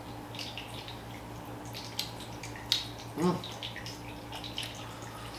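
Wet mouth clicks and lip smacks of someone sipping and swishing rye whiskey, with a short low "mm" about three seconds in. A faint steady electrical hum runs underneath.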